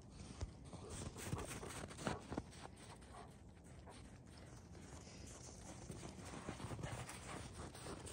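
Quiet, irregular crunching footsteps in packed snow.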